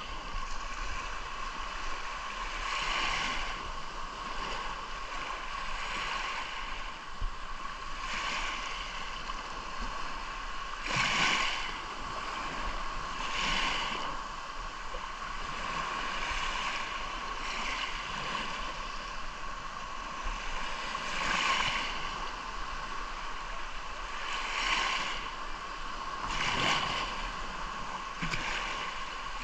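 Sea surf: waves washing in and breaking every few seconds over a steady rushing hiss.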